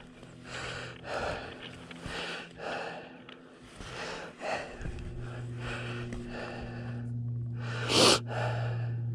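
A person breathing hard, quick breaths more than once a second, close to the microphone. From about five seconds in a steady low engine hum runs beneath, and a stronger, louder breath comes about eight seconds in.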